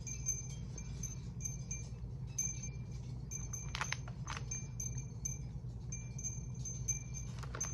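Faint high chiming tones at two fixed pitches, sounding again and again in short stretches over a steady low hum, with a couple of brief rustles or crunches about four seconds in.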